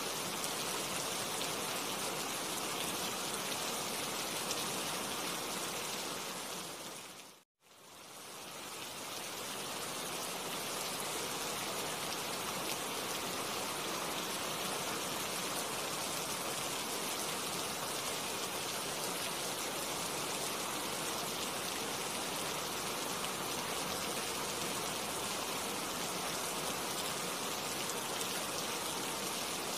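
Steady rain falling on tree foliage, a dense even hiss of drops. About seven seconds in it fades briefly to silence and then swells back up.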